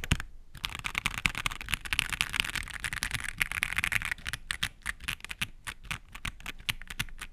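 Mechanical keyboard with Gateron CJ linear switches being typed on, a clacky, higher-pitched keystroke sound: a fast run of keystrokes, then slower separate presses from about four and a half seconds in.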